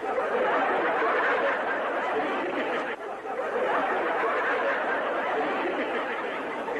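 Many voices chattering and laughing at once: a dense, steady crowd murmur with a brief dip about three seconds in.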